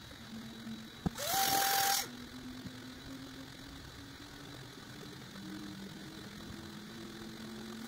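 3D printer stepper motors whirring as the print head moves back and forth, their tones stepping up in pitch as the print speed is raised during a flow test. About a second in, a click is followed by a loud rushing burst with a rising whine that stops after just under a second.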